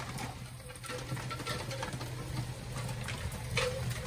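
Heavy rain pouring down onto a flooded paved path and garden: a steady wash of rain with scattered drips and splashes.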